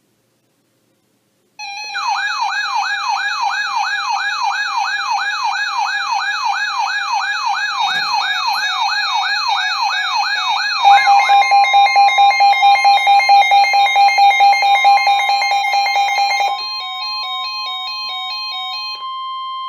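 Layered electronic siren and alarm tones: a fast wailing sweep, about three rises a second, over steady high beeps. About eleven seconds in it switches to rapid pulsing tones, which thin out to one steady tone near the end.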